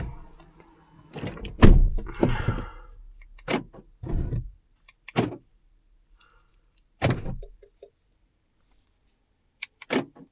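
Clunks and clicks of a car door and its fittings: a string of separate sudden knocks with gaps between, the loudest about a second and a half in, followed by a short rustle.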